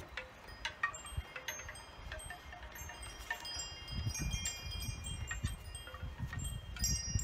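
Wind chimes ringing, many high metallic notes struck at uneven moments and overlapping as they fade. A low rumble joins them about halfway through.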